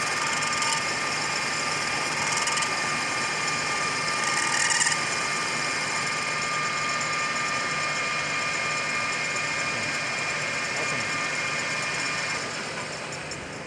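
Center lathe running at high speed, a steady whine over a low hum, while turning a mild steel rod, with brief bursts of high hiss in the first five seconds. The sound falls away about twelve seconds in.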